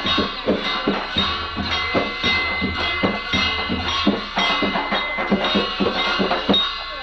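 Large two-headed barrel drums (Newar dhimay) beaten in a fast, dense rhythm, with steady ringing tones sounding over the strikes.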